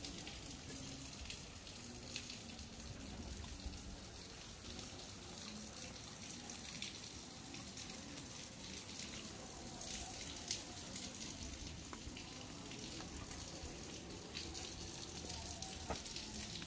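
Light rain falling and dripping: a faint, even patter with scattered single drops.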